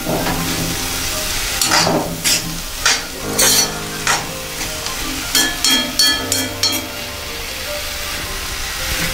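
Sliced onions sizzling as they sauté in hot coconut oil in a pan, with a spatula stirring and scraping through them in a dozen or so irregular strokes.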